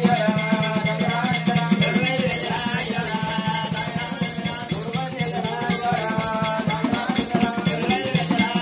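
Oggu Katha folk music: a hand drum beaten in a fast, steady rhythm, with the regular jingling of bells in time with it and a wavering melody above.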